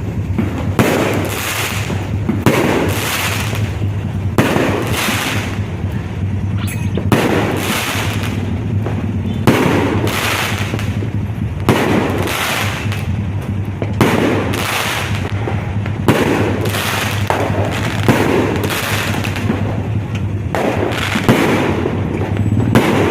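Fireworks going off in a continuous barrage: many sharp bangs in quick succession, each trailing off in a rumbling echo.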